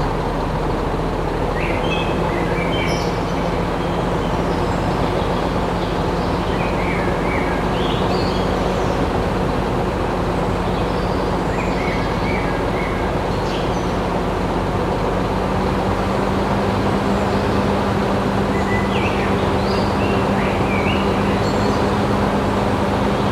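A steady mechanical hum with a constant low drone, with short bird-like chirps scattered over it.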